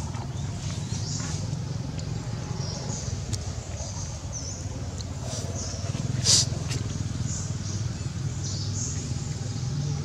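Outdoor background noise: a steady low hum with scattered faint high chirps, and one short sharp squeak about six seconds in.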